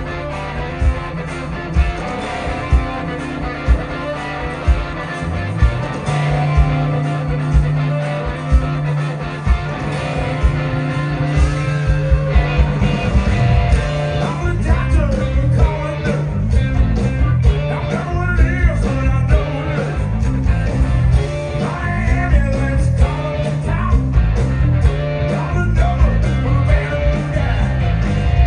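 Live blues-rock band playing: a Les Paul-style electric guitar over bass and a steady drum beat, with a man singing at times.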